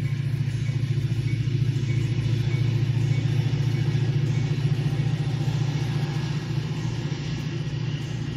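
Metra commuter train's bilevel cars rolling over a road grade crossing. A steady, loud, low rumble with a rapid flutter runs throughout.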